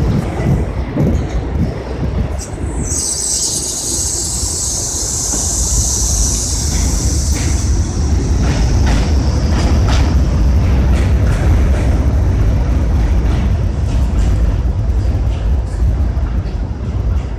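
New York City Subway R42 train pulling out of an elevated station: a steady low rumble of motors and wheels, with a high-pitched hiss for a few seconds near the start and a few clacks of wheels over the rails as it moves off.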